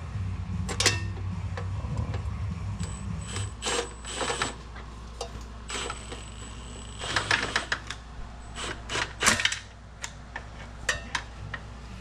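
Irregular metallic clicks and short bursts of tool clatter as oil pan bolts are being threaded in and started. A low steady hum underneath stops about three and a half seconds in.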